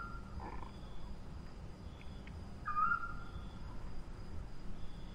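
An owl calling: a short, high, steady note, heard near the start and again about three seconds in, repeating at about three-second intervals.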